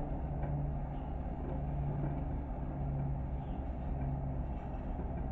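Skid steer loader's engine running steadily, a low drone with a hum.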